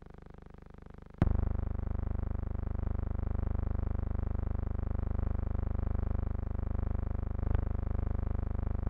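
A loud, steady buzzing hum made of many evenly spaced tones. It jumps in with a click about a second in, has another click near the end, and cuts off suddenly with a click. The jumps fall on the film's cuts, so it is noise on the soundtrack of old silent film.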